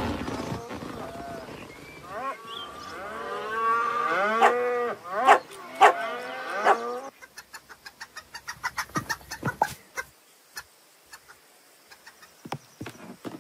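Cartoon cows mooing, several overlapping drawn-out moos that bend in pitch. About seven seconds in they give way to a quick run of light clicks, about five a second, which stop near ten seconds, followed by a few scattered clicks.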